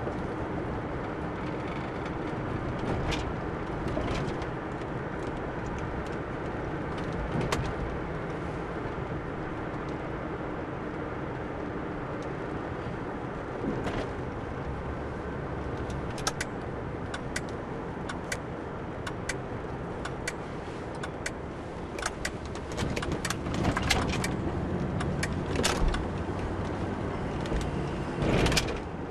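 Car driving along a street, heard from inside the cabin: a steady hum of engine and road noise. In the second half come a run of sharp clicks and knocks, loudest near the end.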